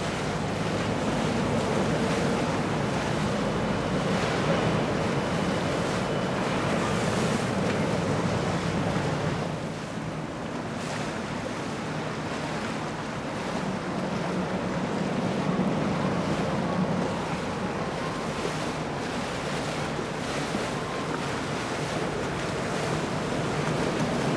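Motor yachts cruising past: a steady low engine drone with water rushing along the hulls, and wind buffeting the microphone. The sound dips briefly about ten seconds in.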